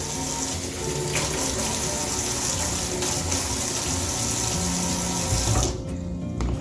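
Water running steadily from a tap, as if rinsing in a sink, then cut off suddenly near the end.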